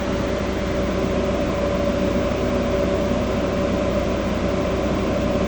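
Toyota Land Cruiser engine running steadily at an even speed, with a steady tone over its fast low pulsing. The owner takes this sound for a problem with the engine.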